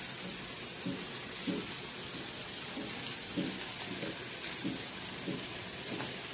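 Chopped onion, garlic, ginger and green chillies frying in oil in a small pan: a steady sizzle. Soft knocks come every half second or so.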